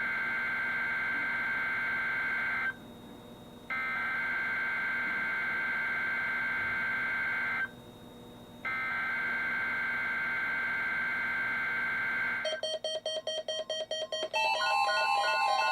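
NOAA Weather Radio SAME digital header: three data-tone bursts of about four seconds each, a second apart, signalling a Required Weekly Test. Near the end, several weather radio receivers set off their alert beeps at once, in overlapping patterns and pitches that grow louder.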